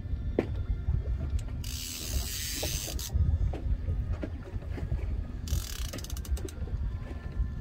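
Fishing reel ratcheting in two bursts of rapid clicking, about one and a half seconds in and again about five and a half seconds in, each lasting about a second, over a steady low rumble.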